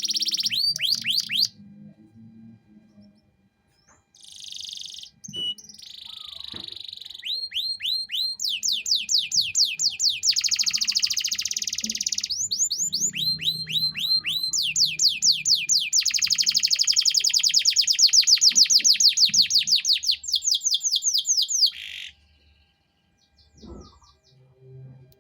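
Male domestic canary singing: long rolling trills of fast repeated notes, each a quick downward sweep, in phrases with short breaks. It pauses soon after the start and stops a few seconds before the end.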